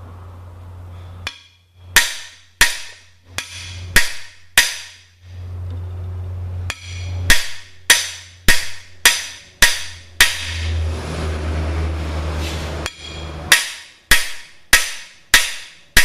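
Hammer blows on a cam bearing installer tool, driving a cam bearing into a 396 big-block Chevy engine block: sharp metallic strikes, about two a second, in runs broken by short pauses.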